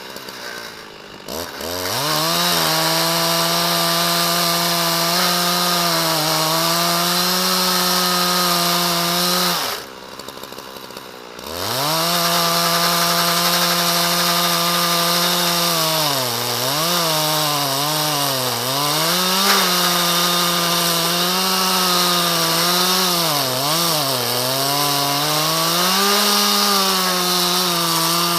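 Husqvarna 372 XPG two-stroke chainsaw with a ripping chain, on a chainsaw mill, revving up from idle and running at full throttle. It drops back to idle for a couple of seconds about ten seconds in, then revs up again. In the second stretch the engine speed dips and recovers several times under the load of cutting hard, dry ash.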